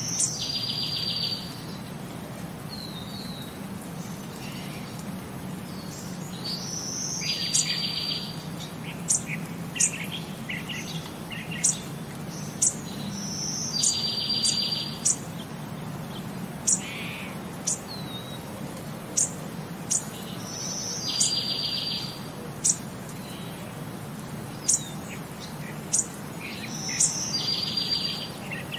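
Birdsong: a buzzy one-second trill that comes back at even spacing about every seven seconds, with short high chirps scattered between, over a steady low hum.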